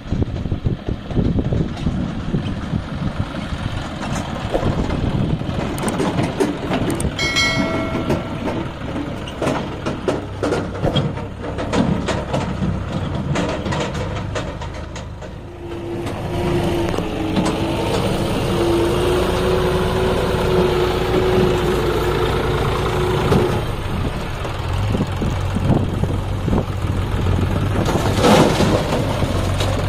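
John Deere tractor's diesel engine running as it hauls a loaded trolley over a rough dirt track, with a clatter of rattles and knocks from the trolley and tyres. In the second half the engine runs on steadily, with a whine for several seconds and a louder surge near the end.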